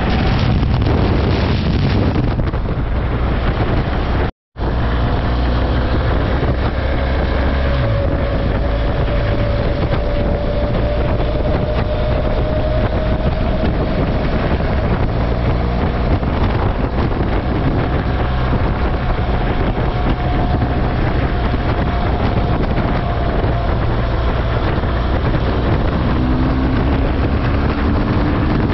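Steady engine and road noise from a moving vehicle, with wind rushing over the microphone and a faint whine that slowly rises in pitch. The sound drops out completely for a moment about four seconds in.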